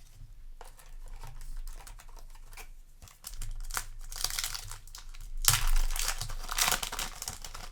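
A Yu-Gi-Oh! booster pack's foil wrapper being crinkled and torn open, with irregular crackles throughout. The loudest rustling comes about five and a half seconds in.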